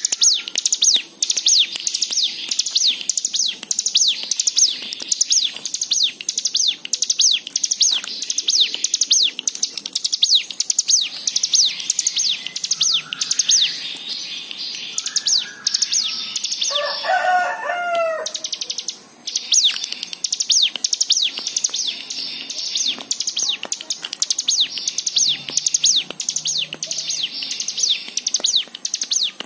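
Hill prinia (cigun) singing: a rapid, steady string of high, sharp down-slurred notes, about three a second. About halfway through, a lower slurred call from another bird cuts in for a second or two.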